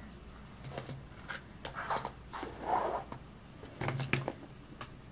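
Plastic surprise eggs and small toys being handled: light clicks, taps and rustles, scattered a few times.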